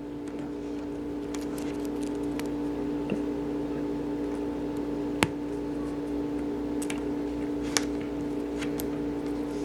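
A few small sharp plastic clicks as Cherry keyboard stabilizers are taken apart, the wire popped out and the stem separated from the base, over a steady electrical hum.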